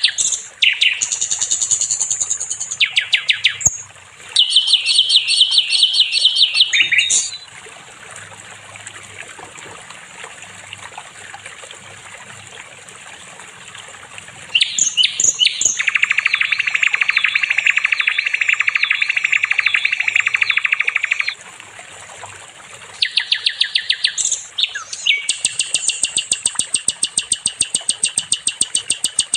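Sikatan londo flycatcher song: bouts of fast, high repeated notes broken by short pauses. A long buzzy trill comes about halfway through, and a rapid chattering run of notes starts near the end.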